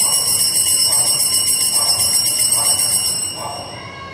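Altar bells rung at the elevation of the consecrated host: a cluster of small bells shaken in a steady jingle of high ringing tones, fading out about three seconds in.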